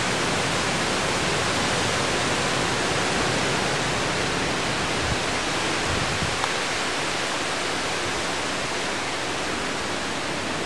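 A strong gust of storm wind rushing through the trees: a steady, even rush of noise, with a few faint low buffets on the microphone about five to six seconds in.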